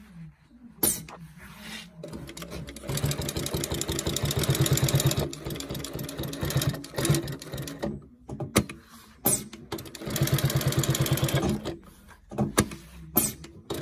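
Durkopp Adler 867 industrial sewing machine stitching fabric in two runs: fast and rhythmic, then slowing before it stops, and a second shorter run. Sharp mechanical clicks come as it stops and between the runs.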